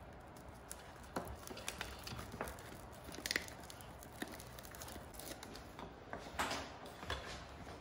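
Faint handling noise of sticking a self-adhesive Velcro strip onto the plastic housing of a humidity controller: scattered rustles and light clicks. There is a sharper click about three seconds in and a longer rustle about six and a half seconds in.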